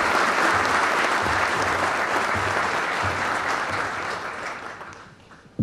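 Audience applauding in a large hall, clapping that fades away over the last second or so.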